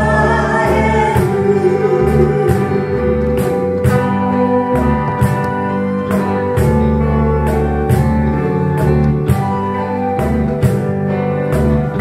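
Small band of electric guitars, bass, box drum and keyboard playing a slow Japanese song, with singing near the start. Steady percussion hits, about two to three a second, carry on under held melody notes.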